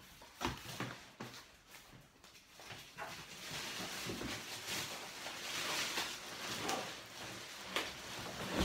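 Cardboard box flaps being opened and handled, with plastic wrapping rustling as the packed air fryer is lifted from the box, and scattered knocks and clicks of cardboard; the rustle is loudest in the middle, and a sharp knock comes at the very end.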